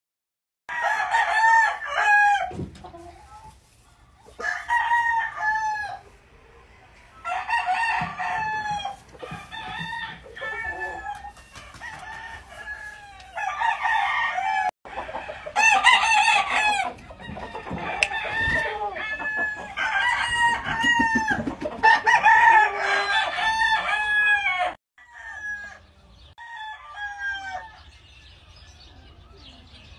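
Several gamefowl roosters crowing one after another, their crows often overlapping. The crowing is fainter and sparser in the last few seconds.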